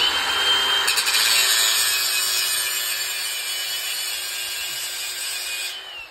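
Angle grinder grinding the paint off a steel propane tank down to bare metal, to make a good ground for a plasma cutter. It starts at once, runs steadily with a high whine for almost six seconds, then winds down near the end.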